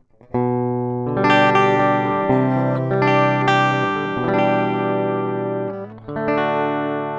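Fernandes Revolver electric guitar played through the LeGion amp-simulator plug-in, ringing chords that change every second or two. The guitar breaks off briefly about six seconds in, then a last chord rings out.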